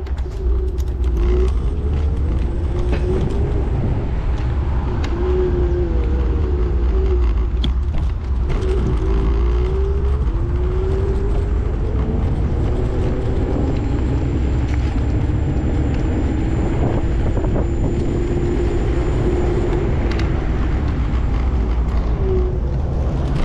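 A motor running on the move, its whine gliding up and down again and again with speed, over a steady heavy low rumble of wind and road noise.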